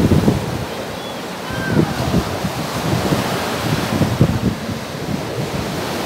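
Storm surf breaking and washing up a pebble beach, a continuous rushing wash, with strong wind buffeting the microphone in low gusty rumbles.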